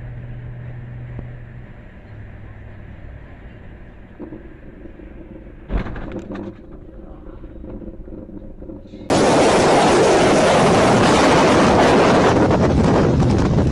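Steady low engine and road drone heard from inside a car's cabin, broken about six seconds in by a sudden loud thump as the car meets a white pickup truck that has slid side-on across its path on a snowy road. About nine seconds in it gives way to a loud, steady rush of wind on the microphone.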